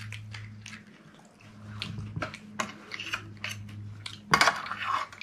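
Close-up eating of pani puri: short crunches and clicks of crisp puris being bitten and chewed, wet slurping of the pani, and a spoon clinking in a bowl of filling, over a steady low hum. The loudest burst comes a little past four seconds in.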